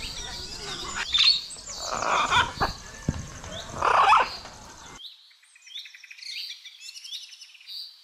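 Flock of small birds chirping and tweeting, with a few louder sounds around two and four seconds in. About five seconds in, the lower sounds cut off abruptly, leaving only thin, high chirps.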